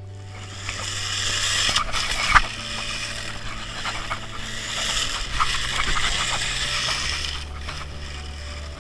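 Background music with sustained low bass notes that change pitch every second or two, over a loud rushing hiss.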